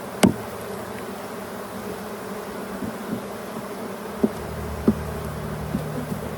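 Honeybees from a freshly installed package buzzing around an open hive, with a few sharp knocks: the loudest just after the start, smaller ones about four to six seconds in.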